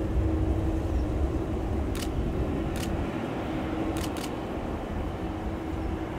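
Boeing 747-400 jet engines running at taxi power: a steady low rumble with an even hum. Four short sharp clicks sound over it between about two and four and a half seconds in.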